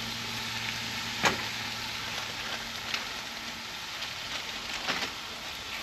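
Shaved beef and squirted water sizzling on a Blackstone flat-top griddle, the water steaming under a steel melting dome to melt the cheese: a steady hiss with a few sharp crackles.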